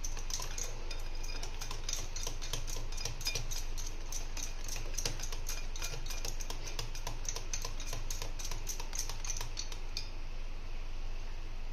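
Wire whisk beating batter in a glass bowl, its wires clicking against the glass several times a second in a quick, even rhythm. The clicking thins out near the end.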